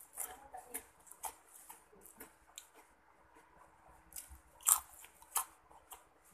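Eating sounds close to the microphone: crunchy bites and chewing of a crinkle-cut potato snack, with scattered small clicks and the loudest crunches about four and a half and five and a half seconds in.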